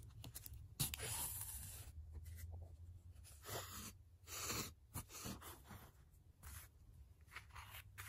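Soft, irregular scratching and rustling of bookbinding thread and paper being handled, in short strokes, the longest about a second in.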